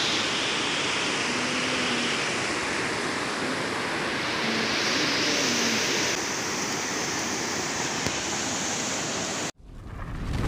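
Water pouring over a low weir and churning in the pool below: a steady rushing. It cuts off abruptly near the end, and a low rumble begins to swell.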